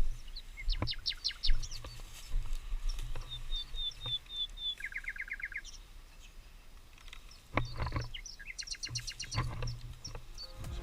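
Small birds calling and singing in woodland: quick descending chirps, a short high trill, and a fast run of repeated notes. A few sharp clicks or knocks come through, the loudest about a second and a half in, with a cluster of them near the end.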